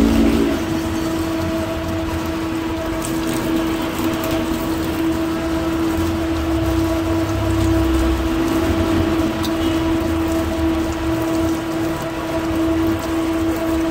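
Tap water running and splashing onto hands and raw shrimp in a stainless steel sink as the shrimp are rinsed, over a steady mechanical hum.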